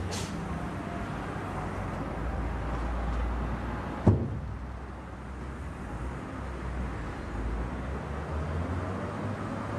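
Steady low rumble of street ambience, with a brief swish at the start and a single sharp bang about four seconds in.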